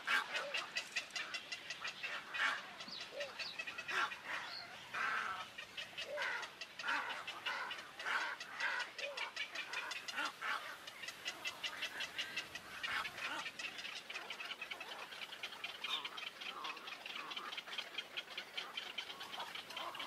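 Mixed waterbird breeding colony of spoonbills, little egrets and cormorants, many birds calling at once. A fast, even chatter runs underneath, with louder harsh squawks over it in the first half, typical of nestlings begging to be fed.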